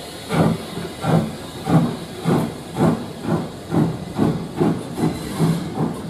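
Steam tank locomotive No. 29 pulling away with a train of coaches: exhaust chuffs with a hiss of steam, about eleven beats that come steadily quicker as it gathers speed.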